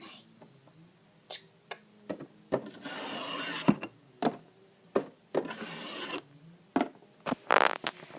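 Handling noise of small toy figures and props: a string of clicks and taps, with two longer scraping, rubbing stretches about three and five and a half seconds in.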